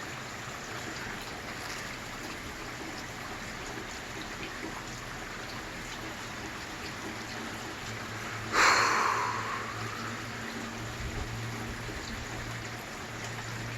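Steady rain falling during a thunderstorm. A sudden louder burst of noise comes about eight and a half seconds in and fades over a second or so.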